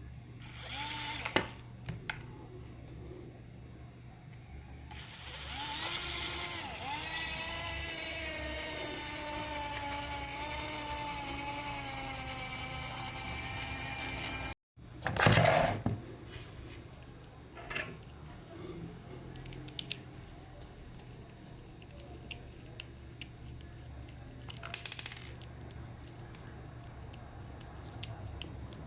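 A small electric motor running with a high whine for about ten seconds, its pitch sagging slowly, then cut off abruptly. Short rattling bursts and clicks come before and after it.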